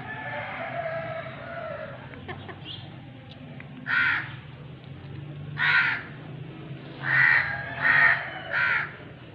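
Five short, harsh bird calls, the last three in quick succession, over a steady low hum.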